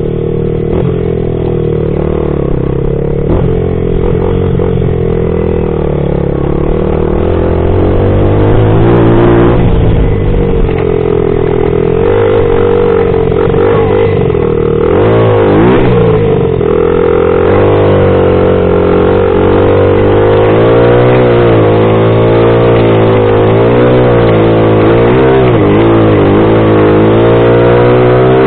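A 2000 Honda XR80R's small four-stroke single-cylinder engine running under way, its pitch rising and falling again and again with the throttle, more often in the second half. Wind rumbles on the microphone for roughly the first ten seconds.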